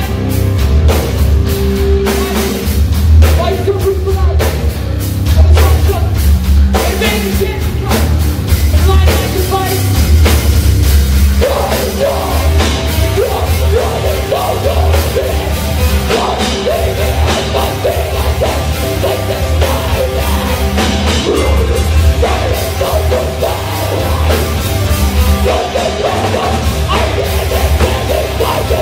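Live heavy rock band playing loud: electric guitar, bass guitar and drum kit, with a woman singing and shouting into a microphone, her voice coming in strongly about twelve seconds in.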